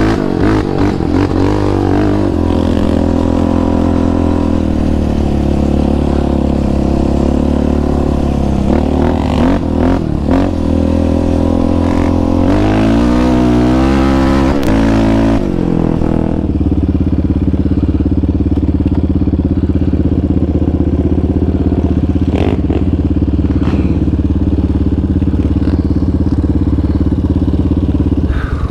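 Single-cylinder sport ATV engine, its pitch rising and falling as the throttle is worked, with a few knocks. A little over halfway through it settles to a steady idle.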